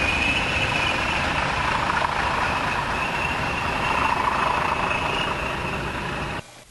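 Class 20 diesel locomotives, English Electric engines running, as a train of tube stock pulls away along the line; a steady, even noise. The sound cuts off suddenly near the end.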